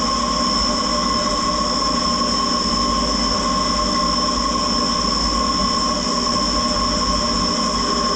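Live-tool milling spindle on a Puma 2600SY II lathe whining at a steady high pitch as an end mill cuts Teflon, with a coolant-spray hiss underneath. The pitch holds level throughout.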